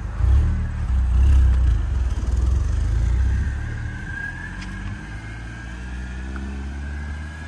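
Mercedes-Benz C230 Kompressor's supercharged 1.8-litre four-cylinder engine pulling away on a test drive: a loud rumble for the first few seconds that then eases off and settles lower as the car drives off.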